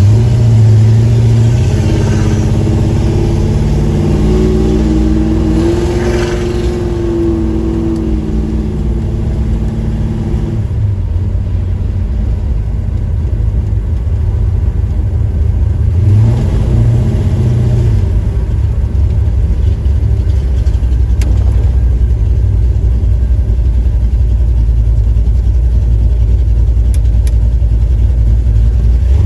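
1977 Chevy Camaro's engine running with a steady low rumble; its pitch climbs and drops back once, about five seconds in.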